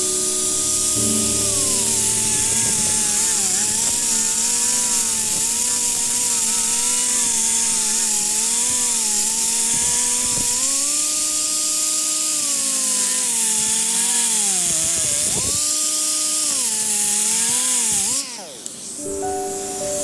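Pneumatic cut-off tool with a small abrasive wheel cutting sheet metal: a high whine over a hiss of air, its pitch sagging each time the wheel is pressed into the metal and climbing back as the load eases. It stops about 18 seconds in, followed by a short hiss of air.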